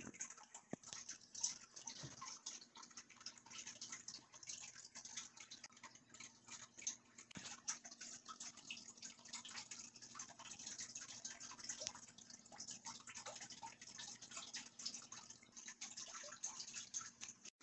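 Faint, irregular small clicks and taps from light handling of small metal key tools on a desk, over a faint steady hum.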